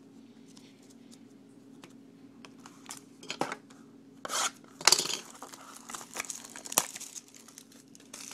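Trading-card packaging being opened by hand: a cardboard mini-box handled and a plastic-wrapped card pack pulled out, giving scattered clicks, then crinkling and tearing rustles, loudest about five seconds in.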